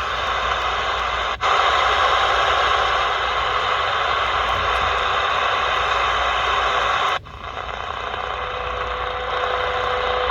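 Shortwave static hissing from the C. Crane CC Skywave SSB receiver's speaker as it is tuned. The hiss cuts out briefly about a second in and dips again about seven seconds in as the frequency changes. Near the end a steady tone comes in: the audio tone of the WWV time-signal station on 15 MHz.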